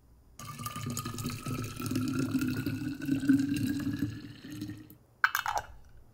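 Hot barley tea poured in a stream into a glass bottle, the filling note rising steadily in pitch as the bottle fills. The pour stops about five seconds in, followed by a brief clatter as the metal screw cap goes on.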